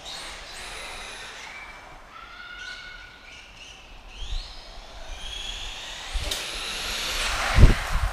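Small electric RC car's motor and drivetrain whining, its pitch rising and falling again and again as the car speeds up and slows, with tyre noise on concrete, echoing under a concrete roof. A single low thump near the end is the loudest sound.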